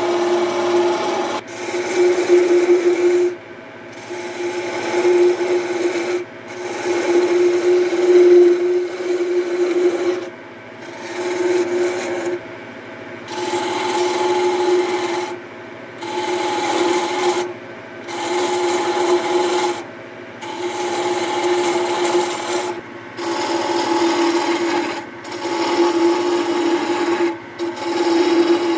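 Hand-held gouge cutting a spinning fir workpiece on a wood lathe, in about a dozen passes of a second or two each with short pauses between, over a steady hum.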